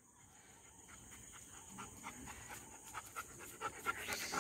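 German Shepherd dog panting rapidly, starting faint about a second in and growing louder over the last couple of seconds as it comes close.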